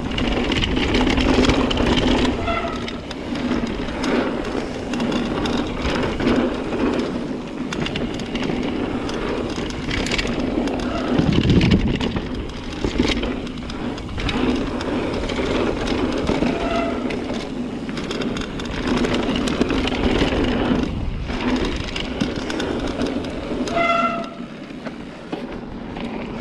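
Aluminium-frame Ibis Ripley AF mountain bike ridden fast down a packed-dirt singletrack: steady rumbling tyre noise with the bike and its loaded gear rattling and clicking over bumps. A few brief high squeaks come through, about two seconds in, midway and near the end.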